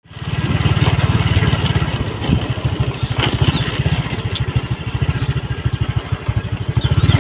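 Small motorcycle engine running steadily while riding, its exhaust pulsing evenly, with a steady hiss over it.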